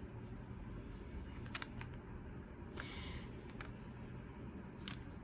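Faint handling of tarot cards and their paper booklet: a few scattered light clicks and a brief papery rustle about three seconds in, over a low steady hum.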